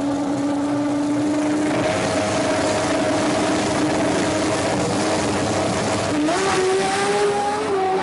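Drag-racing fourth-generation Toyota Supra's engine held at steady high revs on the start line; about six seconds in the revs jump sharply as the car launches down the strip.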